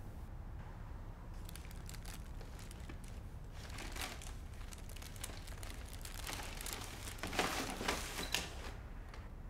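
Packing paper rustling and crinkling as hands rummage through a cardboard moving box, in irregular spells that grow loudest near the end.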